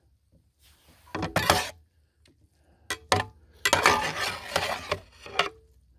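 Metal griddle spatula scraping and clinking against a pan while shrimp scampi is stirred, in short bursts of strokes about a second in and around three seconds, then a longer run of stirring.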